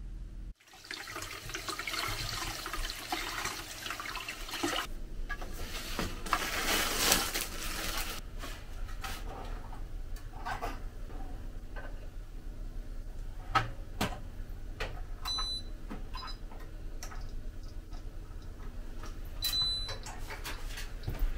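Tap water running for about seven seconds. Then the clicks and knocks of bread going into a countertop toaster oven and its door shutting, with two short high beeps as the oven is set.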